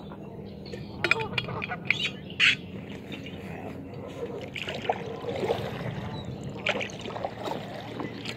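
Canada geese honking at intervals, with water splashing around a kayak and a few sharp splashes in the first few seconds.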